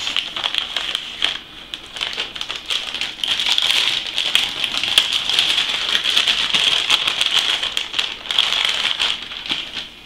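Metallised anti-static bag crinkling and rustling as a graphics card is worked out of it: a dense crackle that eases briefly about a second and a half in and stops shortly before the end.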